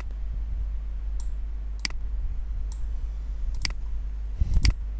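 Computer mouse clicking: sharp single clicks roughly once a second over a low steady hum, the loudest near the end with a dull knock under it.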